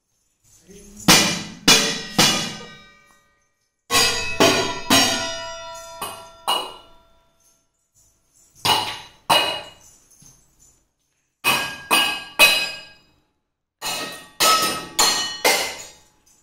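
Stainless steel kitchen pots being banged by hand like a drum, in short runs of two to six strikes with quiet gaps between them. Each strike rings briefly with a metallic tone.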